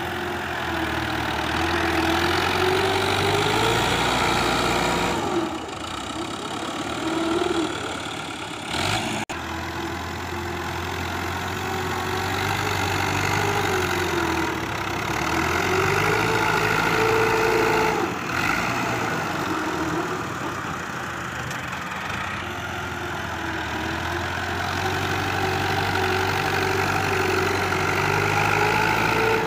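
Fiat 640 tractor's four-cylinder diesel engine running under load as it pushes sand with its front blade, its pitch rising and falling again and again.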